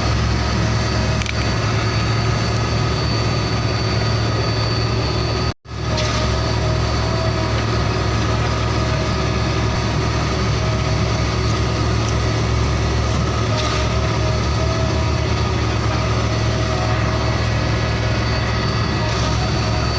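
Heavy truck engine running steadily at idle, cutting out for a moment about five and a half seconds in.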